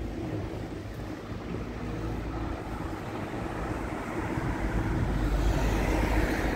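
City street noise: a steady traffic rumble mixed with wind buffeting the microphone. It grows louder over the last couple of seconds.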